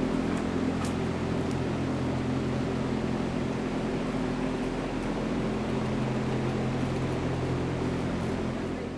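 Steady mechanical hum carrying several low steady tones, dropping away suddenly near the end.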